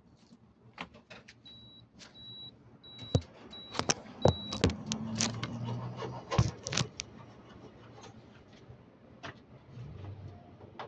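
Clicks and knocks of wires and clips being handled, with a row of five short high beeps in the first half. A brief low electrical hum sets in about halfway and stops after under two seconds, then returns faintly near the end.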